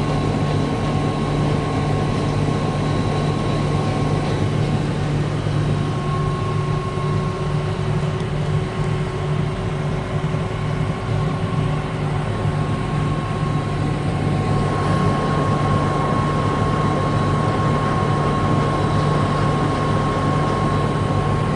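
Heavy farm machinery engine running steadily at working speed during harvesting, with a steady high whine on top that grows stronger about two-thirds of the way through.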